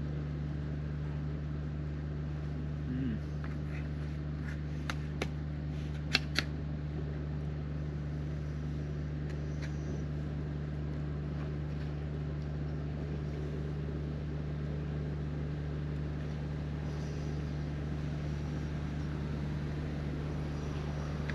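Generator engine running with a steady low drone. A few sharp clicks come about five to six seconds in, the two loudest close together.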